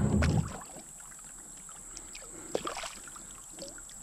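Small splashes and water sloshing as a spotted bass is held in the water beside a kayak and released, in a few short irregular bursts, the loudest about two and a half seconds in.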